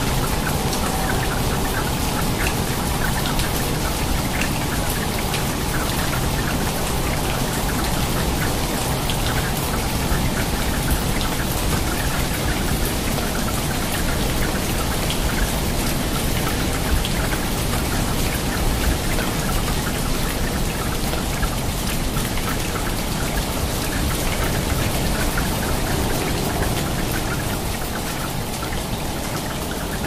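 Steady rain falling onto a water surface: a dense, even hiss dotted with many small drop splashes.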